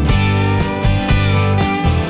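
Background music: an instrumental track with guitar over a steady bass and beat.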